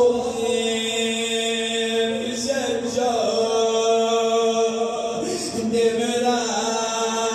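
A man chanting a Persian devotional recitation into a microphone over a PA system, holding long notes of a couple of seconds each and shifting pitch between them.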